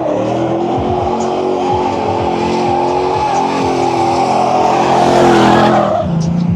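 Car engine held high in the revs with its pitch wavering, with tyre squeal building over it as in drifting; the engine note drops away near the end.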